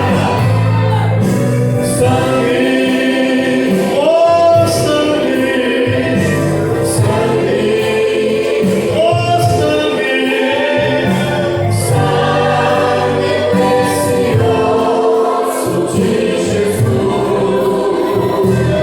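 Gospel worship music: singing with choir-like backing voices over instruments with a steady beat.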